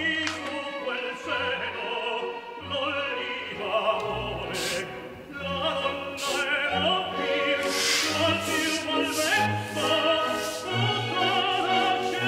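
Operatic singing with vibrato over an orchestra. A few short hissing spritzes from a spray bottle come through over the music, about four seconds in and again around eight to ten seconds in.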